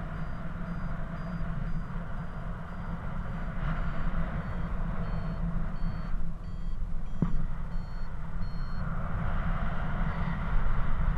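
Paraglider's variometer beeping in short high tones, about two a second at first and sparser in the middle, the pitch shifting from beep to beep: the sign that the glider is climbing in lift. Underneath, steady wind rush on the microphone is the loudest sound.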